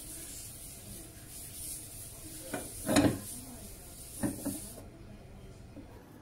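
Kitchen paper rubbed around the inside of a nonstick frying pan, a faint steady hiss, with three light knocks about halfway through, the middle one the loudest. The rubbing stops about three-quarters of the way in.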